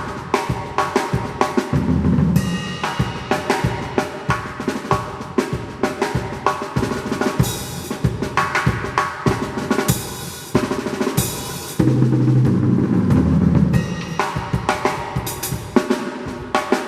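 Drum kit playing a fast sebene groove: rapid snare and hi-hat strokes over the bass drum, with cymbal crashes a few times in the middle and low tom fills about two seconds in and again in the second half.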